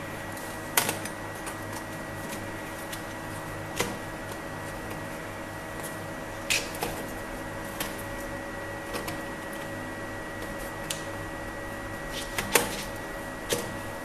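A handful of sharp clicks and knocks, a few seconds apart, as a 2.5-inch laptop hard drive and its metal mounting bracket are handled and fitted into the laptop's drive bay, over a steady background hum.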